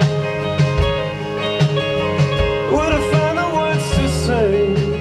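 A band's recorded song playing: guitar, bass and drums keep a steady beat, with a drum hit about every 0.8 seconds. About three seconds in, a melodic line glides up and down in pitch over it.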